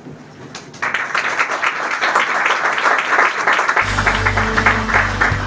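Audience applauding, starting about a second in. Just before the end, music with steady low bass notes comes in under the clapping.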